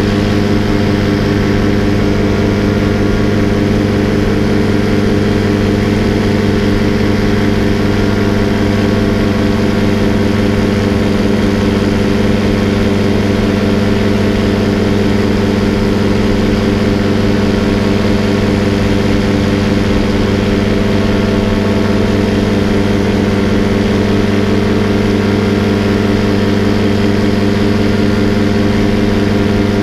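Paramotor engine and propeller running steadily in flight, holding one constant pitch throughout at a fixed throttle setting.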